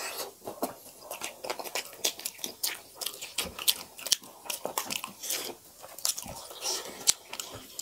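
Close-up eating sounds of makai dhido (maize dough) and chicken curry eaten by hand: wet chewing with many quick sharp mouth clicks and smacks.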